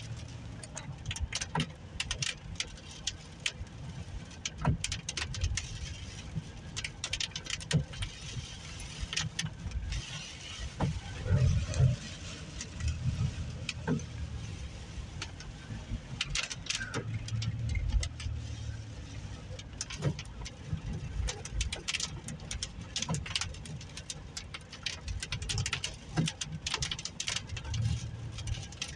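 Inside a car driving on a wet road in the rain: a low, steady rumble of engine and tyres, with many short taps and clicks scattered throughout.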